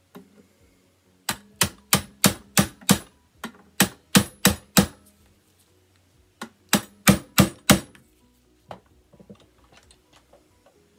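A hammer tapping a steel punch to drive a tight roll pin through a MagWedge Picatinny rail into an SKS rear sight block. There are three runs of sharp metallic strikes, five or six each at about three a second with short pauses between, then a few light handling clicks near the end.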